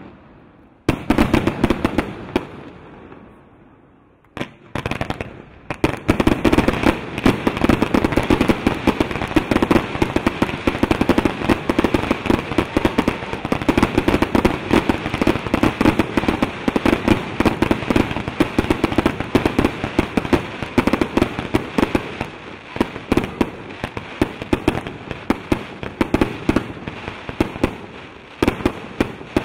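Fireworks display: a single shell bang about a second in that dies away, a few more reports, then from about six seconds a dense, continuous barrage of rapid bangs and crackling that thins a little near the end.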